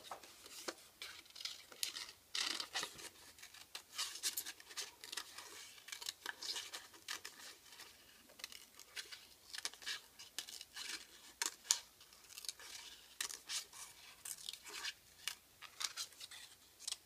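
Scissors cutting construction paper in a long run of short, irregular snips.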